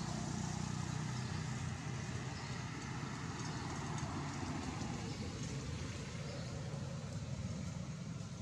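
A motor vehicle's engine running steadily, a low rumble under a broad, even hiss.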